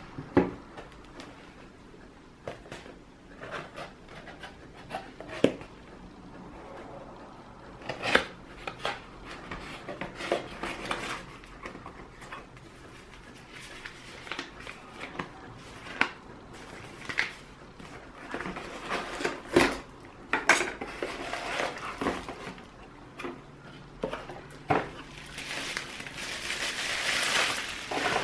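Unboxing and handling sounds: scattered small knocks and clicks as a DSLR camera body and packaging pieces are set down on a table, paper and cardboard rustling, and plastic wrap crinkling near the end as a lens is lifted out in its bag.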